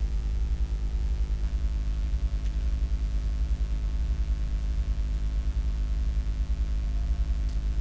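Steady low electrical hum with faint hiss, the background noise of the recording setup between spoken lines. A few faint ticks sound near the middle.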